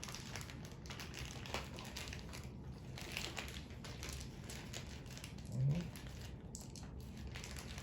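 Crinkly rustling and light clicks of chair parts and bolts being handled during assembly, with a short low vocal hum from a person about two-thirds of the way through.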